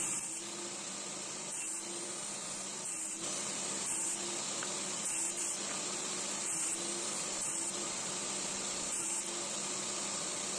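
Benchtop table saw running steadily with a motor whine and hiss while small solid-wood blocks are crosscut on a sled.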